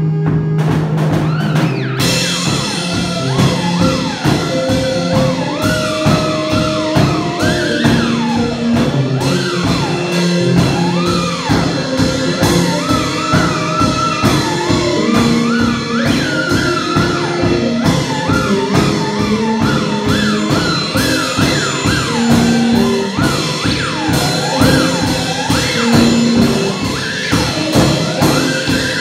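Live garage-rock instrumental: a steady drumbeat under held electronic keyboard notes, with a theremin wavering and swooping in pitch above them.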